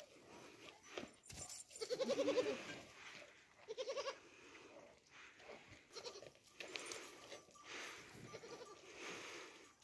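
Young goat bleating: a loud, wavering bleat about two seconds in, a shorter one about four seconds in, and fainter bleats later on.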